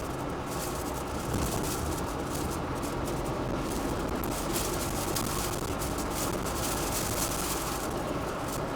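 Steady vehicle noise picked up by a dashcam: a low, even rumble with no clear pitch and a slight rise about a second in.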